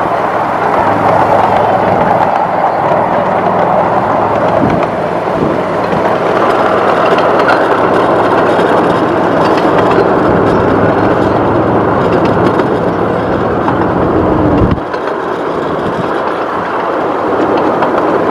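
Ride-on miniature train running along its track: a steady rumble and clatter of wheels on rails over a low hum. About fifteen seconds in, the low hum cuts off suddenly and the rumble drops a little.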